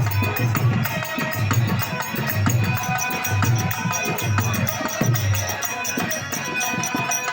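Instrumental break in a Hindi folk song: a hand drum keeps a steady beat while jingling percussion plays fast strokes over it, between sung lines.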